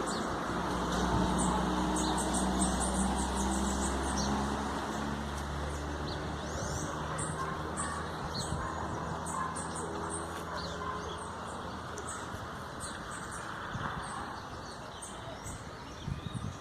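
Birds chirping, many short high calls throughout. Over the first several seconds a vehicle's low engine hum fades away beneath them.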